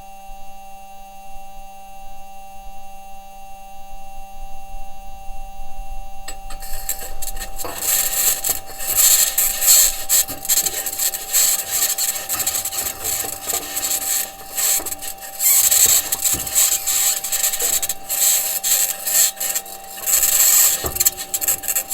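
Perseverance Mars rover's entry, descent and landing microphone picking up a steady electrical hum of several fixed tones. About six seconds in, a high-pitched scratching and grinding starts and swells and dips unevenly: the wheels and suspension working over the Martian surface while the rover drives. The scratching may be electromagnetic interference from the rover's electronics rather than the surface.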